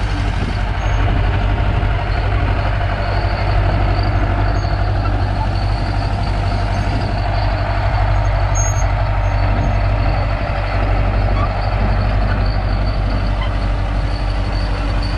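Komatsu D31-17P crawler dozer running steadily up close: its diesel engine and the clatter of its steel tracks as it pushes and spreads gravel.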